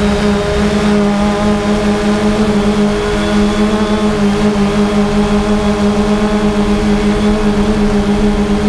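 3DR Solo quadcopter's electric motors and propellers humming steadily in flight, heard up close from the GoPro mounted on the drone, several steady pitches wavering slightly as the motors adjust speed.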